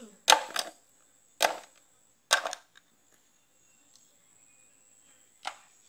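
Sharp clacks and knocks of utensils and containers being handled while food is put into a bamboo tube: a quick pair just after the start, single knocks at about one and a half and two and a half seconds, and one more near the end.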